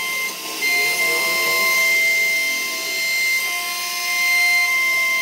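CNC router spindle running with a steady high whine as its bit cuts a carved pattern into a wooden door panel, over the hiss of the cut. The sound dips briefly just under half a second in.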